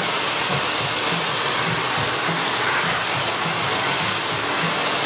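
ECO 8000 Pro Line professional blow dryer running steadily, a constant rush of air.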